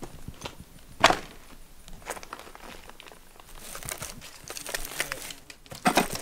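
Footsteps crunching and crackling over rubble of broken tiles, plaster and boards, with a few sharper knocks, the loudest about a second in and another near the end.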